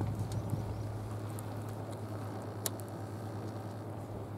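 Sea water lapping and splashing lightly over a steady low hum, with one sharp click about two and a half seconds in.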